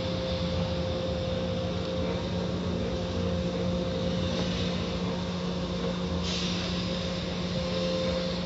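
Automatic car wash heard from inside the car: water and foam streaming over the windshield over a steady hum of wash machinery. The spray turns hissier about six seconds in.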